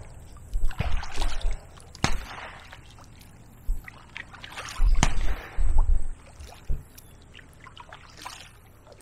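Kayak paddle strokes: the double-bladed paddle dipping and pulling through the water on alternate sides, each stroke a short splash and drip, unevenly spaced, with a couple of sharp knocks about two and five seconds in.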